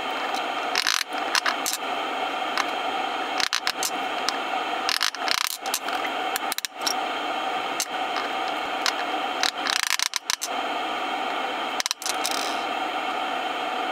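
Hardened potting epoxy being pared off an outboard alternator stator with a chisel: repeated short scrapes and sharp clicks, with small chips dropping on the bench. A steady hum runs underneath.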